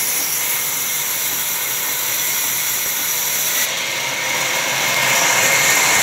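Large sawmill band saw running and ripping a heavy log lengthwise as it is fed through the blade: a steady high whine over a harsh hiss, getting a little louder about five seconds in.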